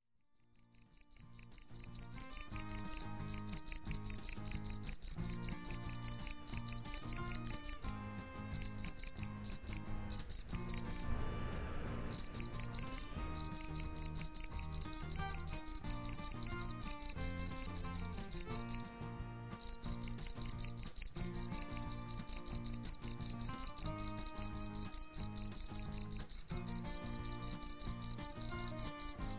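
Male field cricket stridulating: a high-pitched pulsed chirping, several chirps a second, rising in over the first couple of seconds and broken by short pauses about 8, 11 and 19 seconds in.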